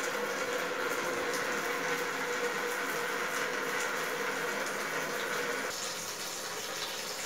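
Air hissing steadily out of the open bleed valve of a panel radiator as water refills it, with a faint steady tone in the hiss: trapped air being purged, the hiss lasting until the radiator is full of water. The hiss gets a little quieter about six seconds in.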